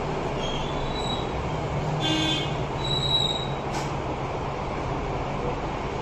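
A steady low hum and rushing noise like a running fan or machine, with a few brief high-pitched tones about two and three seconds in and a faint click near four seconds.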